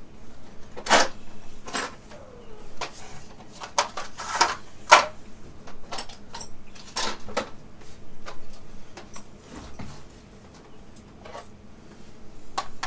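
Hard plastic socket-set trays and cases being rummaged for, lifted and set down on a wooden table: a run of irregular clicks and knocks, the loudest about five seconds in.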